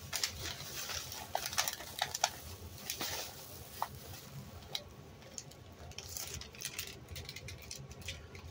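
Plastic packaging crinkling and rustling in the hands as a package is opened: a run of short, sharp crackles and clicks, dense at first and thinning out about halfway through.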